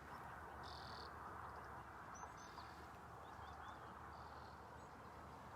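Quiet open-air ambience with a few faint, short bird chirps over a steady low hiss.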